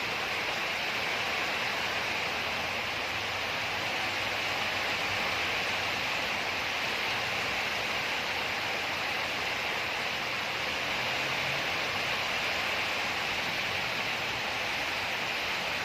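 A steady, even hiss of background noise, like rain or rushing water, with no change or break throughout.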